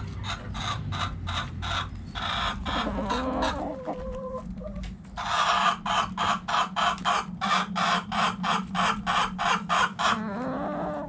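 Hens clucking in rapid, rhythmic series, the louder run at about four clucks a second, with a few short lower calls in between.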